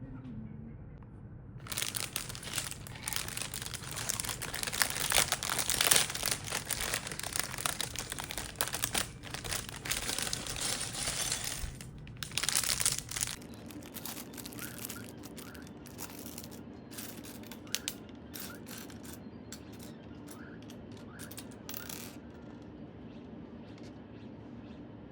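Plastic packaging crinkling and rustling as it is handled: about ten seconds of dense crinkling, then scattered short rustles and clicks.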